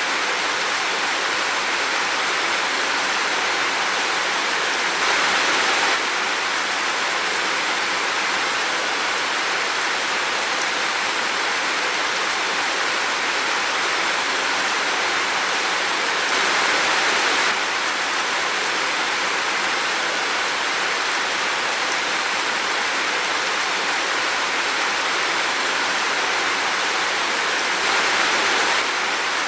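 Heavy rain falling in a steady hiss, swelling briefly about every eleven seconds.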